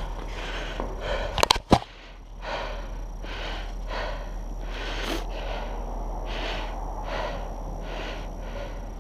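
A cyclist breathing hard and fast in a steady rhythm of quick breaths close to the microphone. Two sharp clicks come about a second and a half in.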